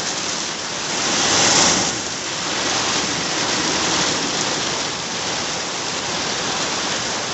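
Steady heavy rain in a windstorm, with a louder gust-driven swell of rain about a second in.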